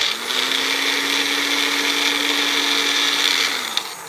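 Magic Bullet MB1001 blender motor running at full speed with a steady whine, spinning up right at the start and winding down near the end. It is running on freshly replaced rubber drive gears, and it works perfectly.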